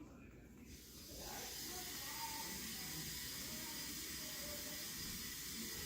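A steady hiss starts about a second in and keeps going, with faint voices under it.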